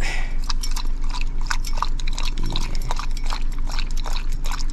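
Kai dog panting quickly and rhythmically, about five breaths a second.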